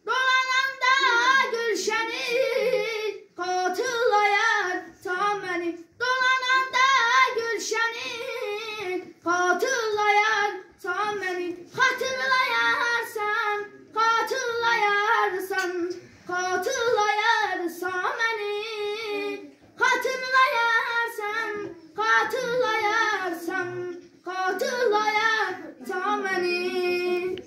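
A boy singing solo and unaccompanied, in phrases of two to three seconds with short breaths between, his pitch wavering and bending on the held notes.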